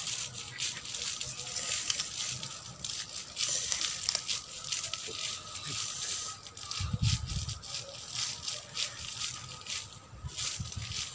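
Irregular light rustling and crackling clicks, with a brief low rumble about seven seconds in.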